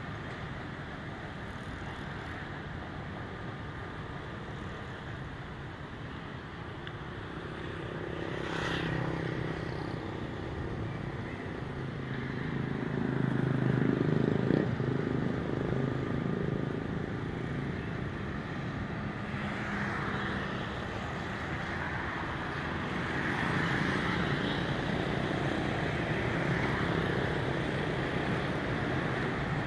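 Urban road traffic: cars and motorcycles running past in a steady hum. A louder vehicle engine passes about halfway through.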